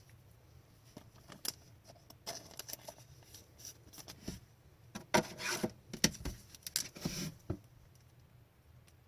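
Trading cards being handled at close range: light slides, scrapes and small taps as cards are flipped through, busiest about five to seven seconds in.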